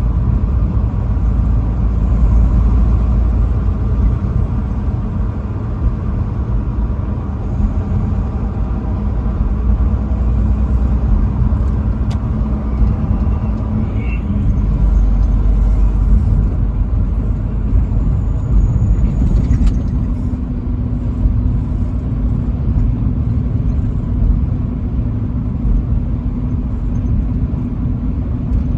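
Truck engine and tyre noise while driving on the highway: a steady low rumble with a faint engine hum.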